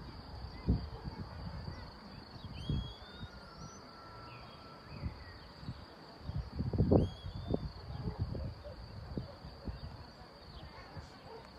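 Outdoor ambience of a steady high insect trill with scattered bird chirps, over low, irregular gusts of wind buffeting the microphone; the wind is strongest about seven seconds in.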